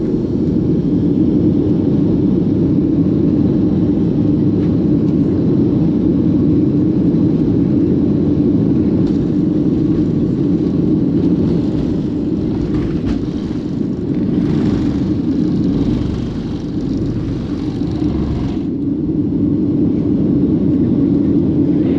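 Cabin noise of a Boeing 737 jet airliner during its takeoff run, heard from a seat behind the wing: the engines at takeoff power make a loud, steady rumble. In the second half an extra rushing hiss comes and goes, then cuts off sharply.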